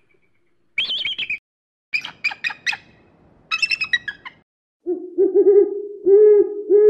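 An eagle gives high, sharp calls in short series. From about five seconds in, a Eurasian eagle-owl hoots repeatedly in a low voice, louder than the eagle's calls.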